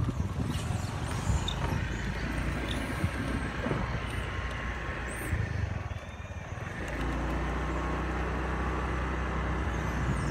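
Motorbike engine running at low speed while being ridden, with wind and road noise; about two-thirds of the way through it settles into a steady low hum.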